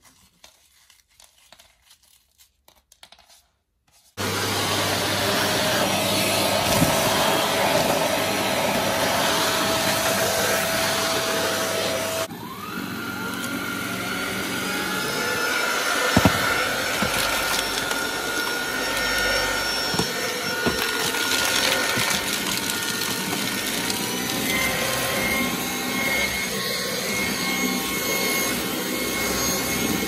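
Electrolux Pure F9 cordless stick vacuum switched on about four seconds in, running steadily as it picks up crumbled cookie. About twelve seconds in the noise drops briefly and the motor whine rises again, and a few sharp ticks come later.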